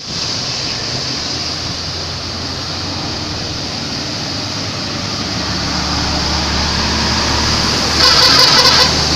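Steady traffic rumble and hiss that slowly grows louder as a bus approaches, then about eight seconds in, a bus's telolet horn sounds for about a second: several musical horn notes pulsing in quick succession.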